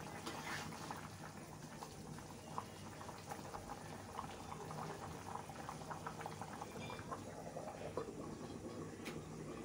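Beef curry bubbling at a simmer in a metal karahi, with small crackling pops as it is stirred with a metal spatula. About eight seconds in, a metal lid is set on the pot with a click.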